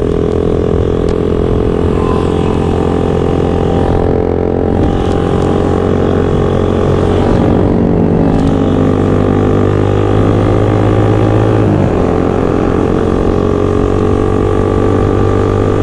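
Motorcycle engines running steadily under way, their pitch holding level, with a brief dip and shift in pitch about twelve seconds in.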